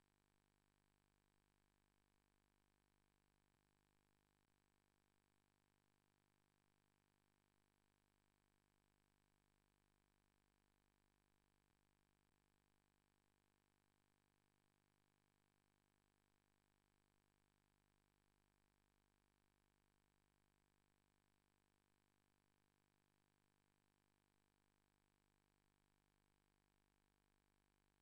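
Near silence: a blank recording with only a very faint steady hum.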